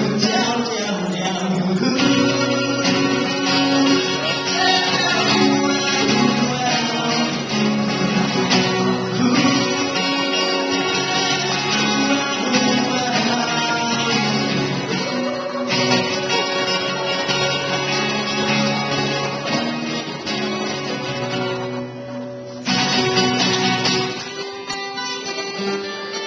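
Acoustic guitar strummed and picked, played live.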